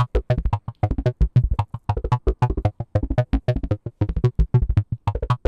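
Make Noise 0-Coast synthesizer voice driven by the 0-CTRL step sequencer, playing a fast, even run of short plucked-sounding notes over a strong bass.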